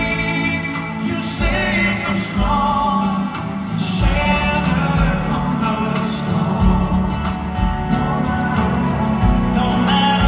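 Male singer singing live into a handheld microphone over band accompaniment, amplified through the concert PA and heard from the audience. Low bass notes fall about once a second under the voice.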